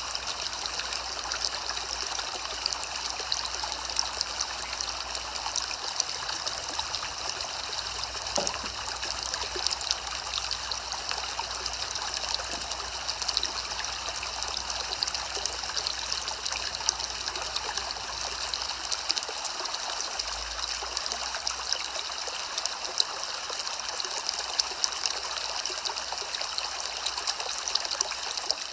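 Soft rain falling steadily: an even hiss dotted with many small drop ticks.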